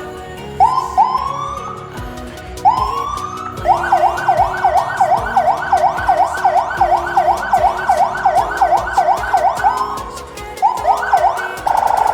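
Vehicle electronic siren running through its tones: a few single rising whoops, then a long run of rapid yelp sweeps, about three a second. Near the end it switches abruptly to a fast-warbling steady tone.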